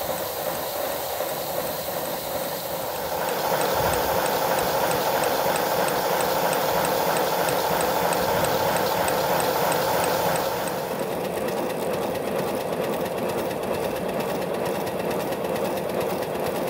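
5-inch-gauge live-steam model of an Andrew Barclay 0-4-0 well tank locomotive running on rollers, its wheels and valve gear turning fast: a rapid, even mechanical clatter with steam hiss. It gets louder about three seconds in and eases back again about eleven seconds in.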